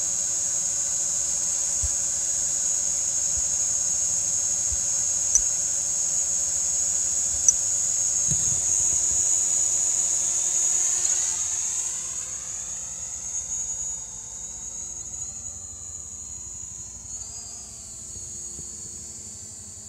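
DJI Mavic Pro quadcopter's propellers whining steadily while it hovers close by, with two brief clicks. About halfway through the pitch starts to shift and the whine fades as the drone climbs away.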